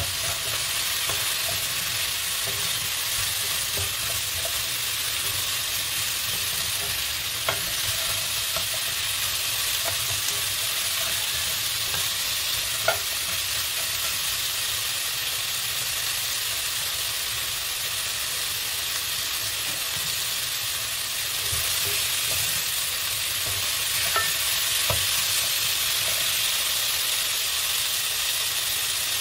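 Vegetables and seafood sizzling steadily in hot oil and spice paste in a non-stick pot as they are stir-fried, with a few sharp clicks of the stirring utensil against the pot.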